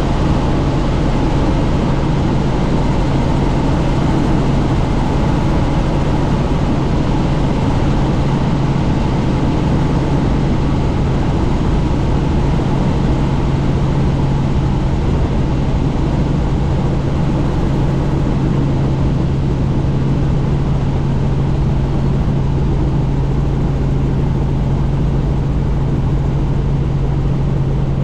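Helicopter in flight with the doors off: a steady drone of rotor and turbine with one strong low hum, under a rush of wind through the open cabin.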